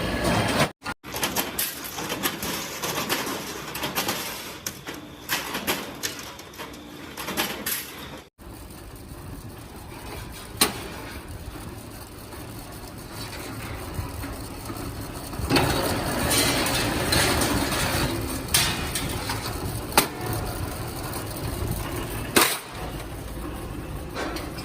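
Factory machinery running with a steady noise, broken by occasional sharp metallic knocks and clicks from pressure cooker manufacturing work.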